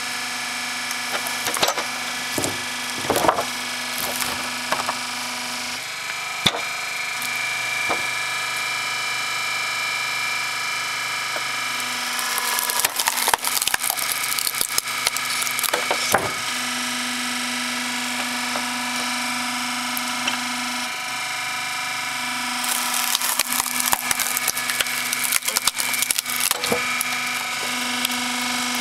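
Hydraulic log splitter at work: its pump unit hums steadily, the tone shifting as the valve is worked, while the ram forces logs onto the wedge. Twice, for a few seconds each, the wood cracks and splinters loudly as a log tears apart, with scattered knocks of wood on the steel bed in between.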